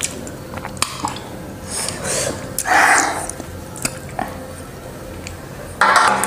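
Slurping Maggi noodle soup straight from a stainless-steel bowl, loudest about three seconds in, with light clinks of the steel bowl and spoon scattered throughout.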